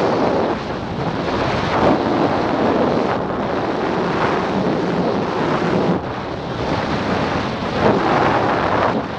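Wind rushing over a helmet camera's microphone under an open parachute canopy in descent: a loud, rough rush that swells and eases in gusts.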